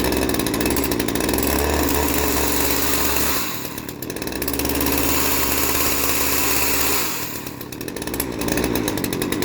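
Old Craftsman 42cc two-stroke chainsaw running on full choke, just fired after sitting. Its engine speed sags twice and picks back up, the uneven running of a saw that still needs its carburettor cleaned.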